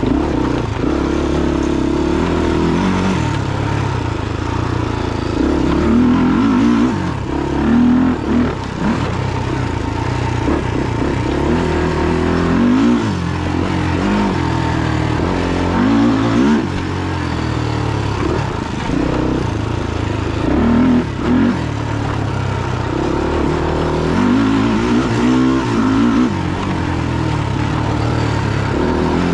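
Single-cylinder four-stroke engine of a Honda 400EX quad bored out to 416 cc, revving hard through a timed lap. Its pitch climbs and drops again and again as the rider accelerates, shifts and backs off for corners.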